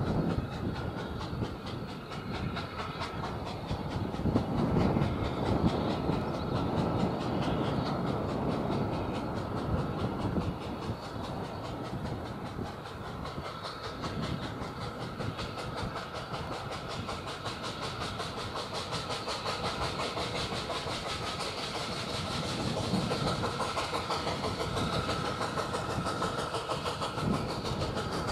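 Narrow-gauge steam locomotive approaching under steam, its exhaust beating in a rapid, steady chuff with steam hiss and rail noise, growing louder near the end as it draws nearer.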